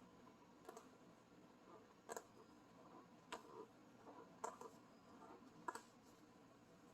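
Near silence with a few faint, scattered clicks and taps, about one a second, that sound like small handling noises.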